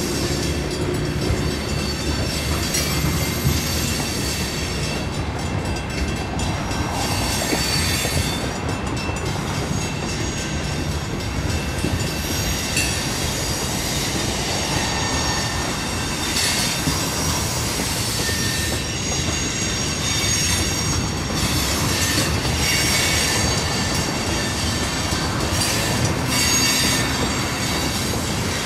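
Freight train tank cars rolling past over a grade crossing, steel wheels clacking over the rail joints and crossing with high-pitched wheel squeal.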